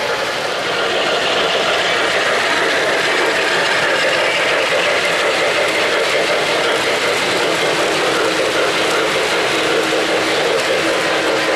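O-gauge model trains running on three-rail track: a steady, even rattle of metal wheels and motors as two trains pass on neighbouring tracks, with a faint steady hum joining about halfway through.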